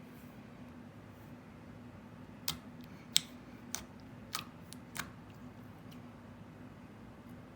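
Butter slime being stretched and pressed by hand, giving about five sharp little clicks and pops in the middle, over a faint steady hum.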